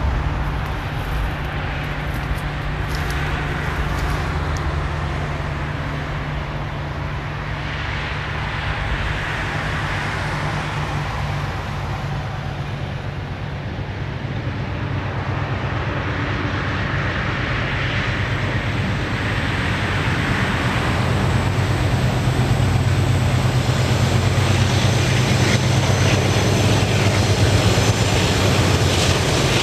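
Two ALCO 44 class diesel-electric locomotives with V12 engines drone steadily as the train approaches, growing louder over the second half.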